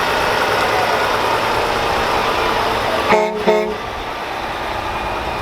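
A vehicle horn honks twice in quick short blasts about three seconds in, over a steady din of parade vehicles.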